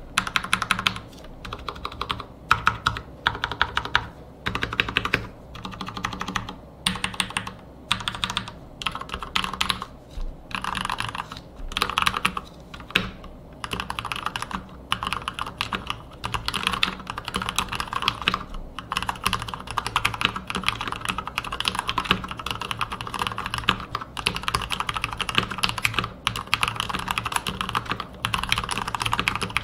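Typing on a full-tuned Marspro MK3 mechanical keyboard with Krytox-lubed Cherry MX Speed Silver linear switches. Short bursts of keystrokes at first, running into steady, fast, continuous typing from about halfway.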